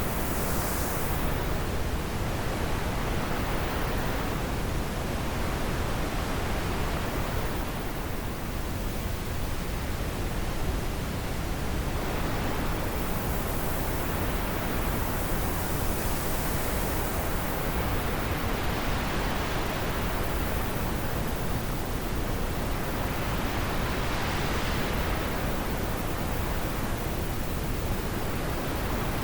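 Wind blowing steadily, its hiss swelling and easing in slow gusts every several seconds.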